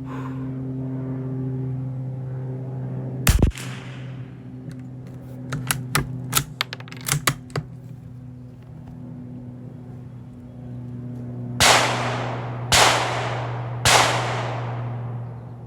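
Gunshots at a rifle range: one sharp shot about three seconds in, a quick run of sharp clicks a few seconds later, then three shots about a second apart near the end, each trailing off in a long echo. A steady low hum runs underneath.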